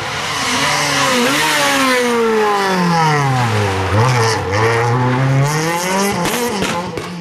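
Rally car engine coming through a tight corner: the revs fall for about three seconds as it brakes in, then climb as it accelerates out, with a few quick dips near the end from gear changes.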